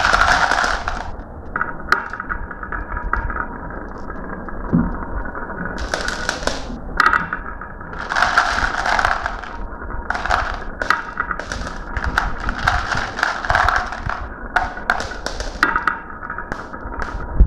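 Marbles rolling down a marble run with a continuous rumble, and many sharp clicks and clatters as they knock against the track and each other, coming in clusters every second or two.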